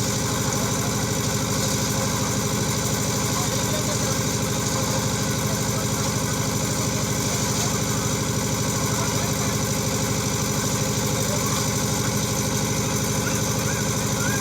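Concrete mixer's engine running steadily at an even speed.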